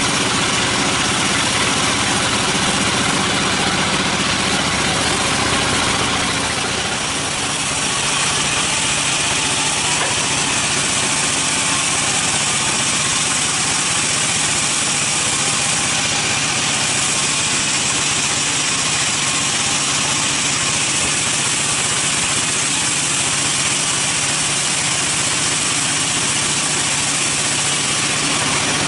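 Large band saw running while a wooden slab is fed through its blade: a steady, loud machine hum with a dense hiss of cutting. It dips briefly about seven seconds in.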